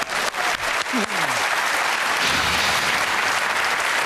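Studio audience applauding: dense, steady clapping, with a single voice calling out briefly about a second in.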